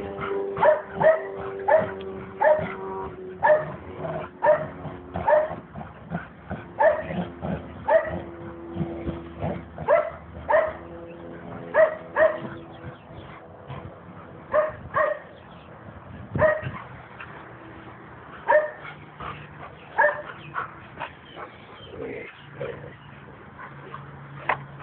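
A dog barking excitedly at a tug-of-war game, in short, sharp barks about one or two a second, broken by a few brief pauses. The sound is thin, through a mobile phone's microphone.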